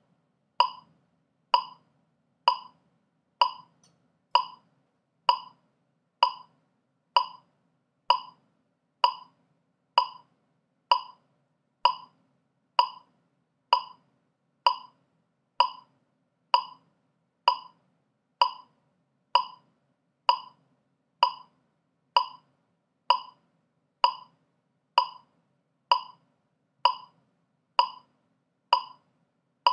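Metronome clicking steadily at 64 beats per minute, a little under one click a second, every click short, sharp and identical.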